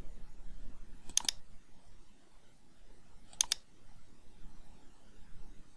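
Two computer mouse clicks, each a quick double tick, about a second in and again about three and a half seconds in, over faint steady background noise.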